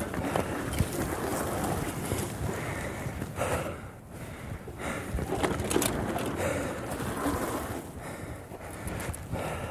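Mountain bike tyres crunching and sliding down a steep slope of loose rock and gravel, an irregular rushing noise with scattered small crackles. It dips briefly about four seconds in.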